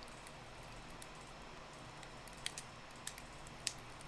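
Small sharp clicks of plastic model-kit parts being handled and pressed together, a few separate ticks in the second half over a faint steady hum, as a popped-off armor piece is worked back into place.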